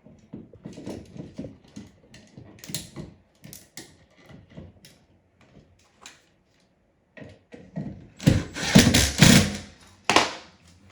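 Hand work on an electrical outlet's wiring: a run of small mechanical clicks and scrapes as the wires are fitted to the terminal screws, then a louder burst of clattering about eight seconds in.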